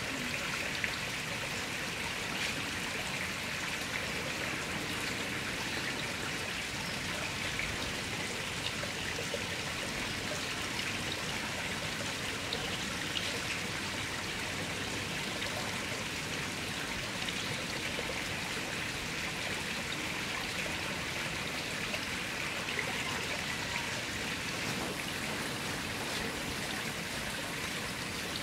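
Running water trickling steadily, an even hiss with a few faint drips.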